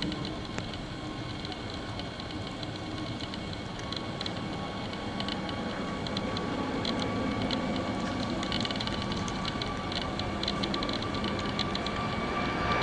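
Jet airliner's twin engines at takeoff thrust, heard from beside the runway during the takeoff roll and climb-out: a rushing roar that slowly grows louder, with a steady high whine from the engines.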